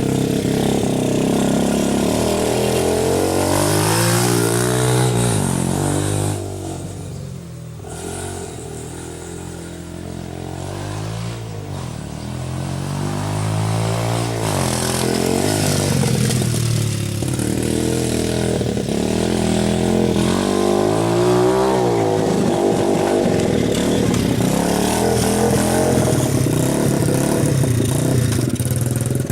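Dirt bike engine running and revving up and down over and over, with the pitch climbing and dropping in repeated sweeps. It goes quieter for a few seconds about six seconds in, then comes back up.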